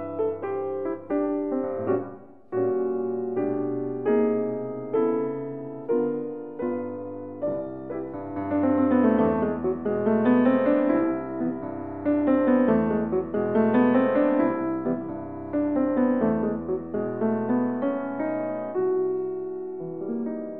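Piano music: struck chords and flowing arpeggios that ring and decay, fading out near the end.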